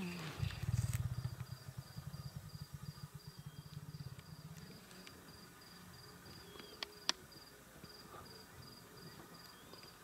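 A cricket chirps steadily about twice a second. Over the first few seconds a low, fast-pulsing rumble fades away, and there are a couple of sharp ticks about seven seconds in.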